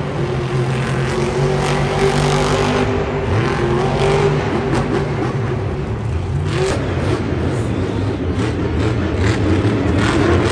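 Monster truck engine running loud and revving, its pitch rising and falling as the truck is driven hard, heard across the stadium.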